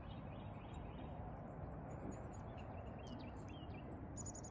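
Quiet outdoor ambience: a steady low background hum of open air with faint, scattered bird chirps.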